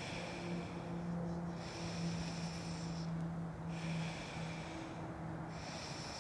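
Slow, audible breaths in and out through one nostril during alternate nostril breathing, a nasal hiss that rises and falls with each breath, about a second and a half each, with short pauses between. A steady low hum runs underneath.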